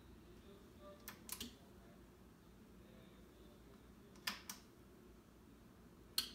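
Front-panel switches on a Kenwood 500 Supreme amplifier clicking, with no music playing: two short clicks about a second in, two more just after four seconds, and a single click near the end.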